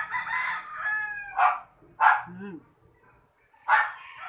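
A rooster crowing, with a dog giving a few short, sharp barks in between.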